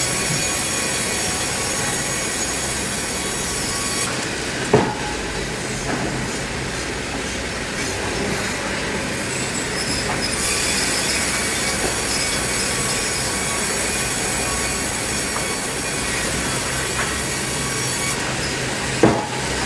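Sawmill saw running and cutting through timber, a steady loud mechanical noise with a high screeching whine that eases for several seconds near the middle, and a sharp knock about five seconds in and again near the end.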